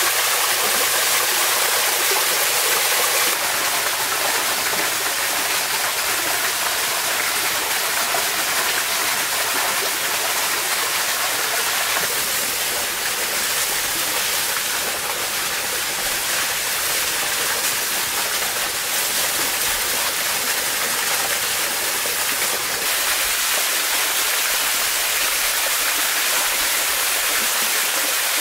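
Small waterfall pouring steadily into a rock pool: a constant rush of water whose tone shifts slightly a few times.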